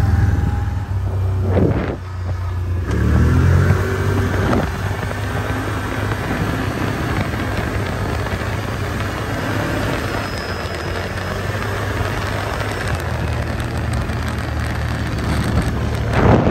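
A motor vehicle's engine running steadily while driving, with wind buffeting the microphone and a short change in engine pitch about three seconds in.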